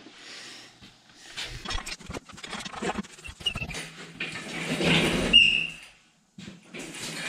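Chain and engine hoist clanking and rattling as the cast-iron cylinder head is lifted off an International 986 tractor's six-cylinder diesel engine, with a short squeak about five seconds in.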